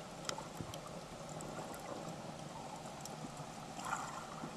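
Underwater ambience on a coral reef recorded through the camera's housing: a steady watery hiss with a low hum and scattered sharp clicks and crackles.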